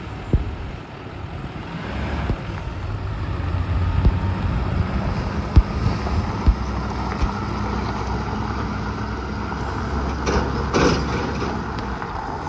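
Chevrolet C4500 medium-duty truck's engine running as the truck drives off, getting louder about two seconds in as it pulls away. A few sharp clicks are heard over the steady hum.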